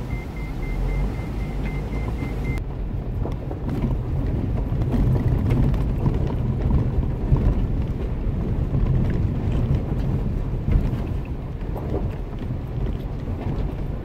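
Cabin noise of a car driving slowly over a rough, unpaved mountain road: steady low engine and tyre rumble with occasional knocks and rattles. A rapid high beeping, about three or four beeps a second, sounds for the first two or three seconds and then stops abruptly.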